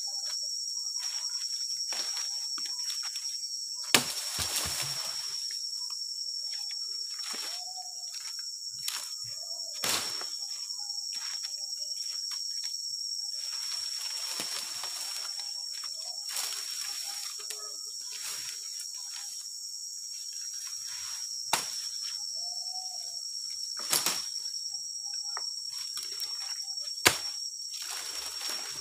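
Steady high-pitched drone of forest insects, with a handful of sharp knocks scattered through it.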